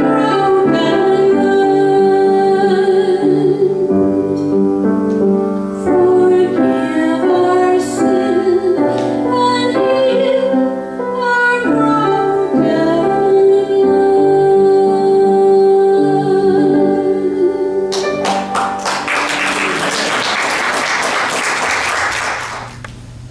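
A woman sings a slow hymn to her own piano accompaniment. About eighteen seconds in the song ends and the congregation applauds for about four seconds.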